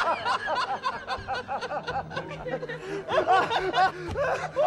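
A man laughing in quick repeated bursts, with a louder run of laughs about three seconds in.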